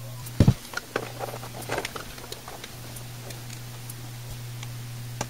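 Light clicks and taps from handling a small circuit board and its wires as they are desoldered and pulled out one by one, with a sharper knock about half a second in. A steady low hum runs underneath.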